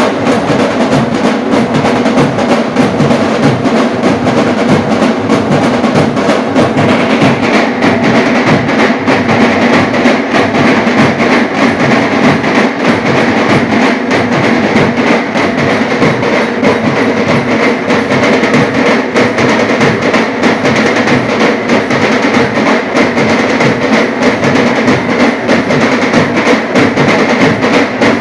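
Dhol-tasha ensemble playing: many large barrel-shaped dhol drums beaten together under fast, continuous rolls on the small tasha drums, loud and unbroken.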